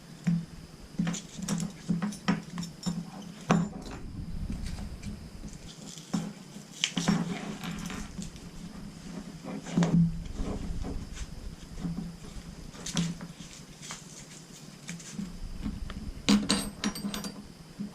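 Metal hardware on a tree-climbing saddle clinking and knocking as it is handled: leg-loop buckles and rings tapping together in irregular clicks, with some rustling.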